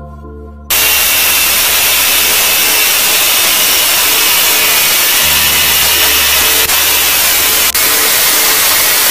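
Handheld DeWalt electric power tool running hard, working on the washer's reducer gearbox. A loud, steady, hissy noise starts less than a second in and holds without a break.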